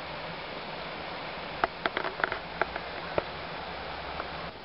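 Steady rushing outdoor noise with a quick run of sharp clicks, about nine of them, in the middle.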